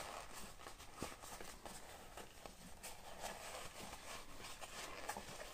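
Faint rustling and soft scattered taps of a faux-leather pouch being handled and turned over in the hands, with a light knock about a second in.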